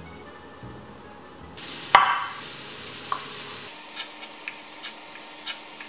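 Background music, then a kitchen knife cutting a thin egg omelet on a wooden cutting board. The blade knocks sharply on the board about two seconds in, followed by a few light taps over a steady hiss.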